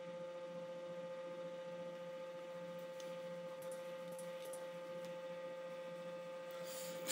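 Steady electrical hum with a clear high-pitched tone running through the recording, with a few faint keyboard clicks a few seconds in and near the end.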